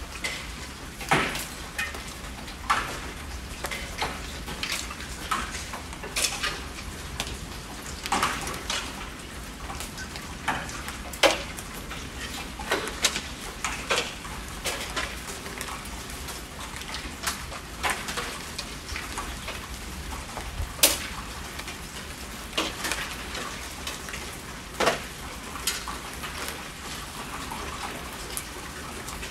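Steady rainfall with a constant hiss, broken by heavy drops landing in irregular sharp taps, one or two a second.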